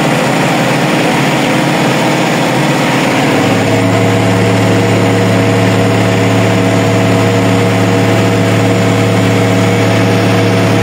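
Tractor engine running steadily, heard from inside the cab while the grain cart's unloading auger transfers corn. About three and a half seconds in, the engine note gets stronger and steadier as it takes the auger's load.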